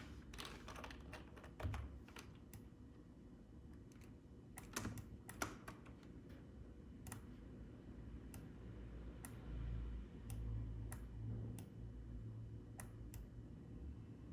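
Irregular clicking of a computer keyboard and mouse: a quick cluster of clicks at the start and again about five seconds in, then single clicks every second or so.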